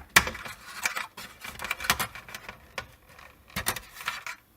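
Irregular clicks, knocks and light rattles of an old hard drive being unplugged from its cables and lifted out of a surveillance DVR. The loudest knock comes just after the start, with clusters of clicks in the middle and near the end.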